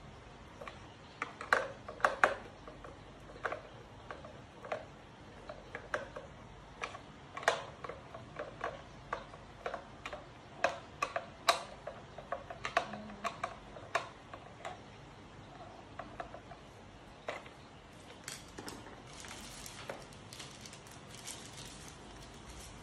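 Irregular clicks and taps of small hard blender parts being handled and fitted during repair, a few a second at the busiest, thinning out past the middle. A soft rustling hiss comes in near the end.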